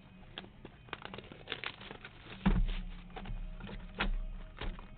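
Scattered light clicks and taps, with a louder knock about halfway through followed by a low rumble.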